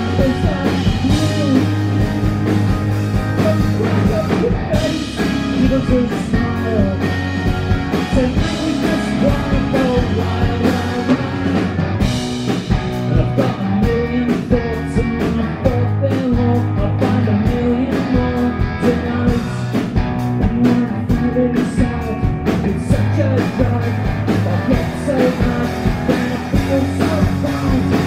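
Live rock band playing: a male lead vocal sung over strummed electric guitar, bass guitar and drums with a steady beat.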